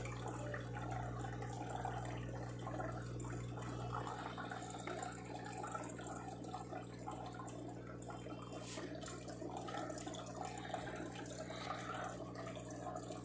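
Steady low electrical hum with a faint running-water trickle behind it.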